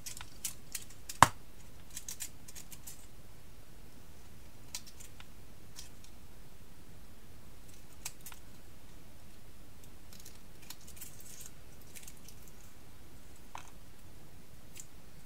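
Scissors snipping through small pieces of foil-covered card, with light crisp rustles and handling clicks, and one sharp click about a second in.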